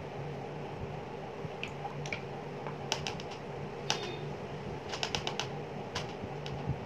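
Scattered light clicks and taps, some in quick clusters of three or four, over a steady low hum.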